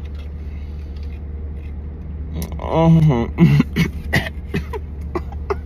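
A man laughing into his hand for a couple of seconds, about halfway through, over a steady low hum in the car cabin.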